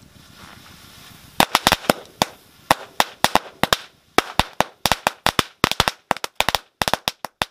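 A hanging string of firecrackers going off in an irregular run of sharp cracks, starting about a second and a half in, some close together and some with short gaps. The lighter takes the string to be damp from rain.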